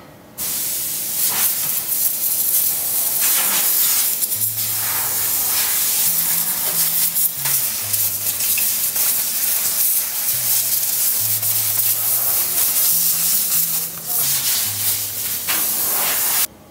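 Pneumatic hose gun hissing steadily as it is worked over metal badminton-racket moulds, with the hiss swelling and easing. It starts abruptly about half a second in and cuts off sharply just before the end.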